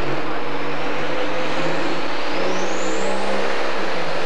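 Turbocharged diesel engine of a pro stock pulling tractor revving up hard as it starts a pull, with black smoke pouring from its stack. Its pitch climbs over the first three seconds with a high turbo whine rising alongside, then eases off a little near the end.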